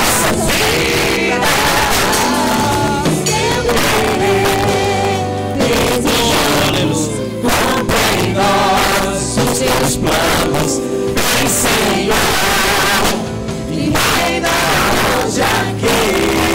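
Live worship band playing a gospel song, with male and female voices singing together in Portuguese over keyboard and electric guitar and a steady beat.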